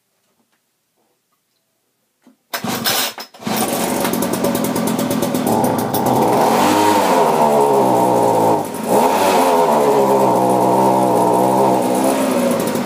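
A loud motor starts up about two and a half seconds in, stutters for a moment, then runs steadily, its pitch dipping and rising a few times.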